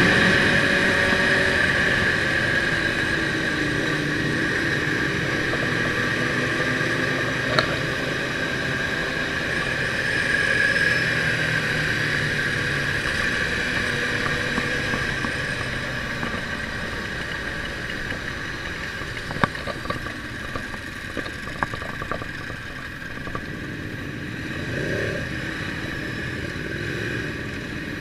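Ducati motorcycle's engine running on the move over steady wind noise, its pitch gliding up and down in the first few seconds. It is loudest at the start and eases off toward the middle.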